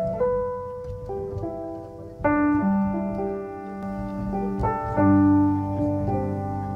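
Background piano music: slow, sustained chords, with new notes struck about two seconds in and again around five seconds in.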